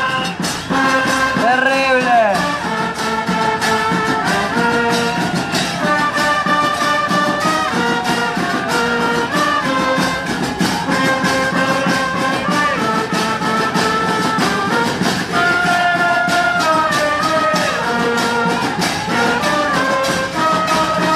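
Murga band playing: bass drums beat a fast, steady rhythm under a held melody line, with one note swooping up and down about two seconds in.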